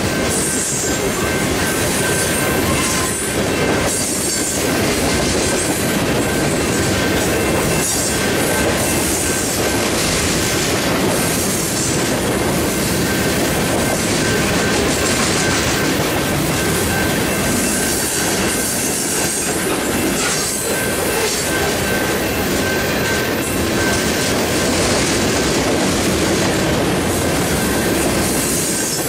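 Freight train of covered hopper cars rolling past close by: a steady, loud rumble and rattle of wheels on rail, with irregular knocks and a thin steady high tone running through it.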